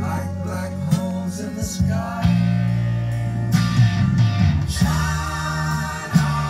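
Music: a song with guitar and singing over a steady bass.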